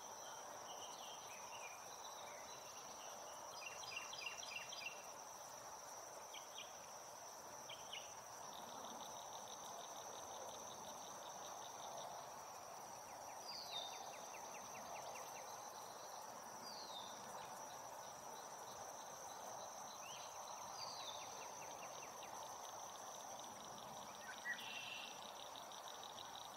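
Wetland ambience: a steady high-pitched insect drone with stretches of fast pulsed insect trills. Scattered short bird chirps and a few brief downward-sweeping calls sound over a continuous soft background hiss.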